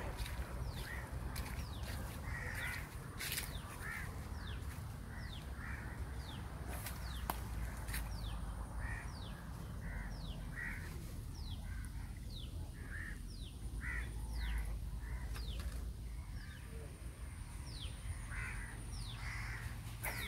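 Birds calling around the water: short falling whistles repeat about once a second, mixed with harsher calls, over a steady low rumble.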